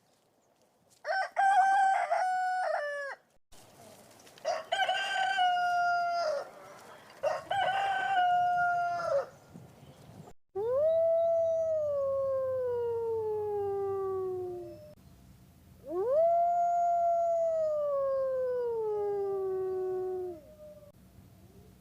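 Rooster crowing three times, then two long canine howls, each rising quickly and then sliding slowly down in pitch.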